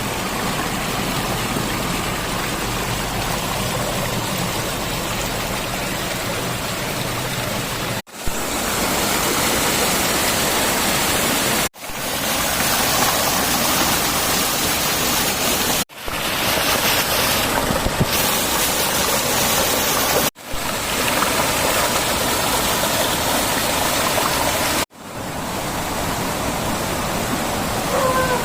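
Steady rush of flowing water, broken by abrupt cuts about every four seconds where separate shots are joined.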